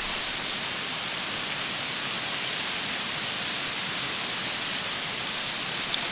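Steady rushing hiss of a small woodland creek swollen by days of rain.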